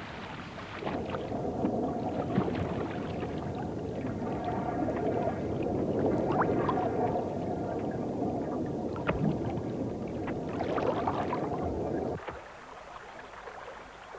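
Elephants swimming across a river: water sloshing and gurgling around their bodies, with occasional small splashes. The sound cuts off sharply about twelve seconds in, leaving only a fainter wash of water.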